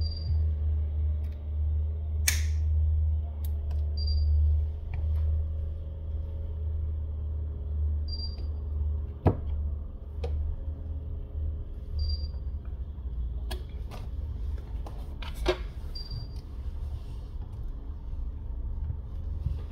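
Glued back cover of a Samsung S20 Ultra being pried off the frame: a short tearing crackle about two seconds in, then scattered sharp clicks as the cover comes free and is handled. Under it runs a steady low rumble, and a short high beep repeats about every four seconds.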